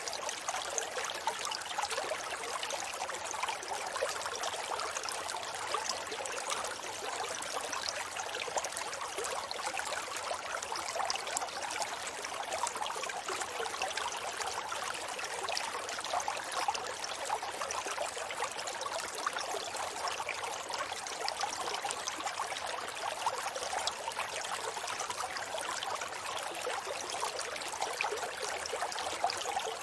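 River water flowing: a steady babbling rush of many small splashes, with little deep rumble.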